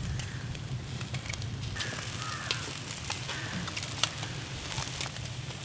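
Fire burning under food roasting in a barrel drum oven: scattered crackles and sharp pops over a steady low rumble.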